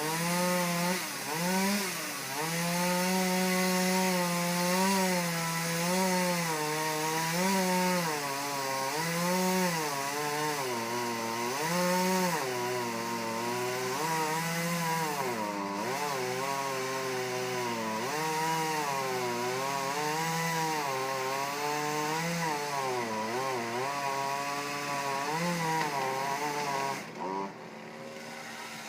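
Chainsaw running at high speed while cutting into a tree. Its pitch sags and recovers again and again as the chain bogs into the wood and frees up. The saw drops away abruptly about 27 seconds in.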